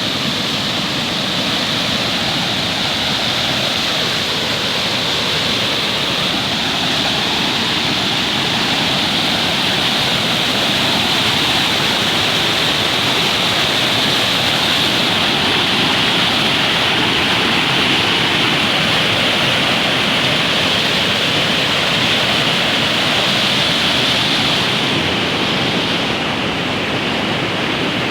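A swollen river rushing in flood after heavy rain: a loud, steady roar of fast water.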